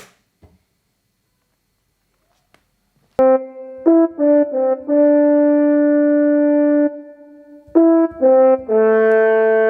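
Synthesised French-horn-like brass notes from a Soundbeam 6 music system: after about three seconds of near silence, a few quick notes of changing pitch lead into a long held note, and the same pattern comes again, ending on another held note.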